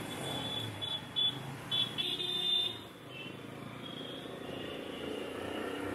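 Busy street traffic with several short, high-pitched vehicle horn beeps, the loudest a longer beep about two seconds in.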